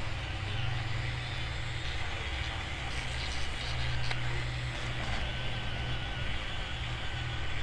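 A steady low electric hum, with faint scraping of a thin metal tool picking old adhesive off a phone's back panel.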